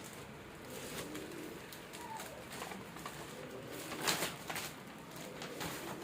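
A bird cooing in the background, with scattered small clicks and knocks. The loudest is a sharp click about four seconds in.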